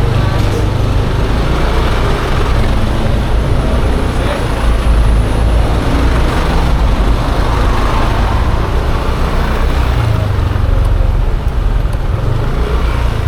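Riding a Yamaha Aerox 155 scooter through traffic: steady, loud wind rumble on the microphone over engine and road noise.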